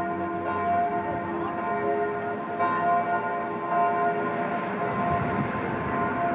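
Bells ringing, several tones pealing together with fresh strikes about every second or so.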